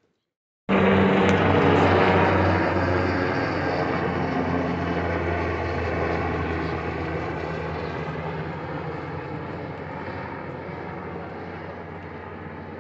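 An engine running with a steady low hum, starting abruptly about a second in and slowly fading away.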